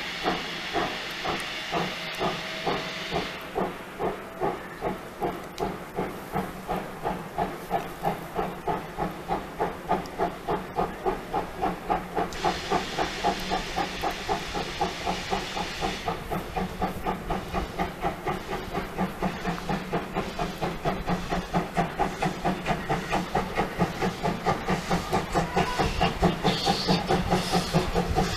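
Steam locomotives of classes 50 and 52 (2-10-0 freight engines) working hard on the approach: a steady beat of exhaust chuffs, about two a second, growing louder. A stretch of steam hiss comes near the start and again about halfway through.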